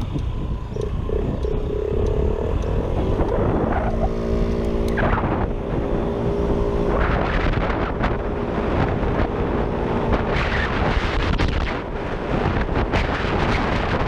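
A small engine running, with a steady engine tone for a few seconds in the middle, under heavy wind noise on the microphone.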